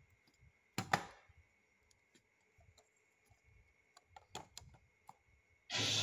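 Plastic Lego bricks clicking and knocking as a handmade Lego belt buckle is handled and a piece is fitted into it: one sharp click about a second in, then a cluster of smaller clicks. Loud music starts abruptly near the end.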